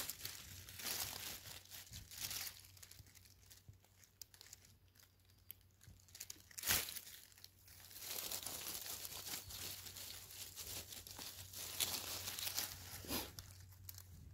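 Dry fallen leaves crackling and rustling as a hand moves through the leaf litter to pick a mushroom, with small crackles growing denser in the second half and one sharper crack near the middle.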